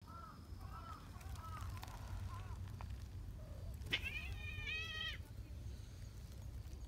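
A cat meows once, about four seconds in: a single high-pitched meow lasting a little over a second. Before it come faint short chirping calls.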